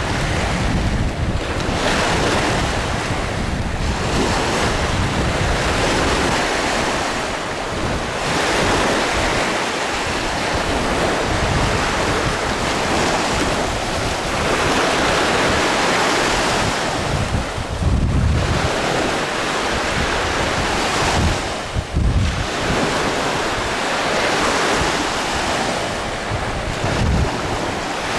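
Wind buffeting the camera microphone over the wash of small waves, swelling and easing in gusts, with a couple of stronger low rumbling gusts in the second half.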